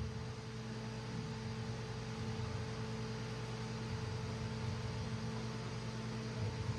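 Steady electrical mains hum made of a few unchanging low tones, over the faint room noise of a large hall.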